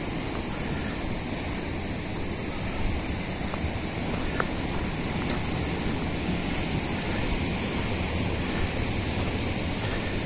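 Steady rush of water from the Rispana River tumbling down a waterfall, with a few faint clicks over it.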